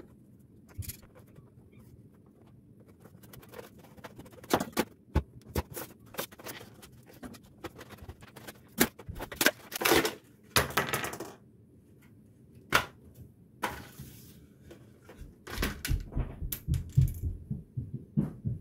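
Stiff plastic blister packaging being cut with scissors and pulled apart by hand: an irregular run of sharp clicks and crackles, with longer crinkling about ten seconds in and duller knocks near the end.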